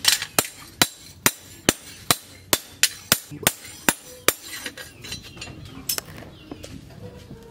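Blacksmith's hand hammer striking the steel of a machete blank cut from a tractor plough disc, steady blows about two a second that stop about four seconds in, followed by a few lighter taps and one last blow.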